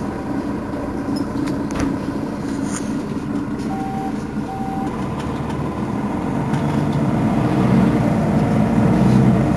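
Mercedes-Benz Citaro facelift city bus engine running, with two short electronic beeps about four seconds in. The engine note grows louder toward the end.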